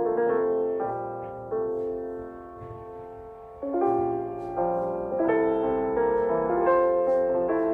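Background music: a slow solo piano piece, notes and chords struck and left to ring, thinning out to a quiet stretch near the middle before fuller chords return.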